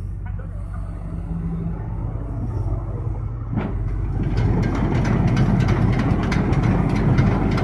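Amphibious excavator's diesel engine running steadily, then getting louder about three and a half seconds in, with rapid clattering over the engine from then on.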